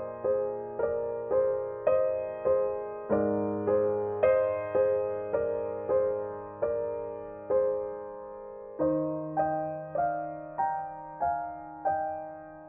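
Gentle background piano music: single notes struck about twice a second over held bass notes. Near the end the notes stop and the sound dies away.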